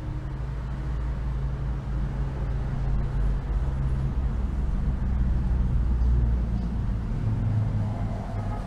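Low, steady engine rumble of a motor vehicle, swelling louder through the middle and easing off near the end.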